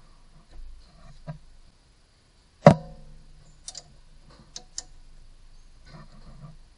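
Hand work on an engine's accessory drive belt and pulleys: quiet handling, then one sharp metallic clink with a brief ring about two and a half seconds in, followed by a few lighter clicks.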